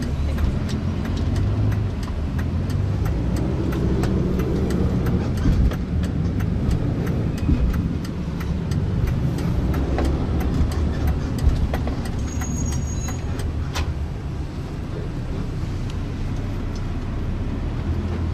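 Road traffic noise: a steady low rumble of motor vehicles.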